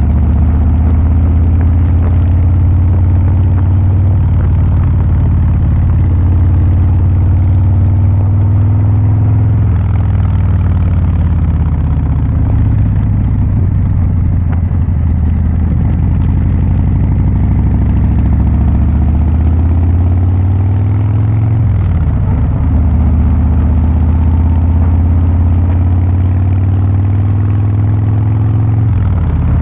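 Harley-Davidson Breakout 114's 1868 cc Milwaukee-Eight V-twin idling through a Kesstech valved exhaust, a deep, heavy note with a few slight rises and falls in engine speed.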